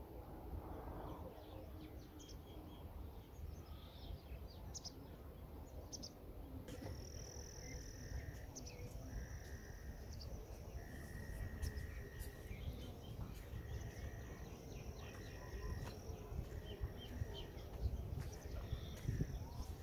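Outdoor ambience: a steady low rumble of wind on the microphone with scattered bird chirps, and from about seven seconds in a repeated high, steady call in short phrases, from a bird or insect.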